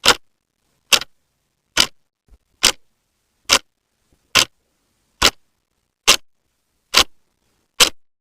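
Clock ticking: ten sharp, evenly spaced ticks, a little faster than one per second.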